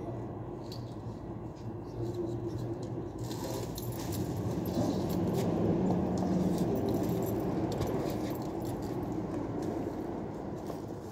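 Plastic wrapping rustling and crinkling as it is pulled around a large cardboard cargo box, starting about three seconds in. A steady low hum runs underneath.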